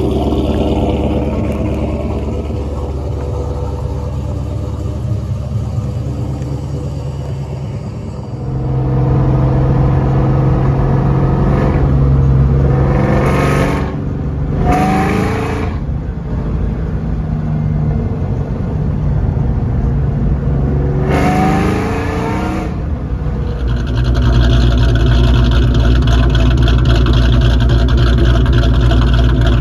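Cammed Ford 4.6 L two-valve V8 of a New Edge Mustang idling through its exhaust. It is then heard from inside the cabin while driving, rising in pitch under acceleration a few times, and then idles again from behind the car.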